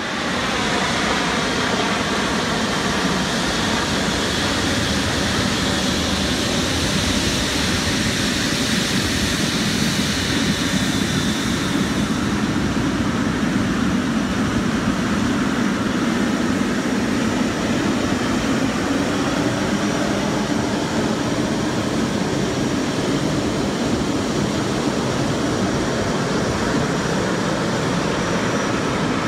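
Boeing 777-300ER's General Electric GE90-115B turbofan engines running at taxi power as the jet rolls past, a steady loud rumble with a high whine that fades about twelve seconds in.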